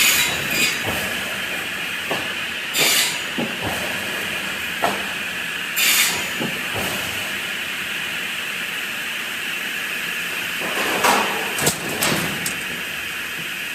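Air-operated sawmill chop saw line running with a steady machine hiss. It is broken by about five short bursts of air hiss and a few knocks, typical of pneumatic cylinders firing and exhausting.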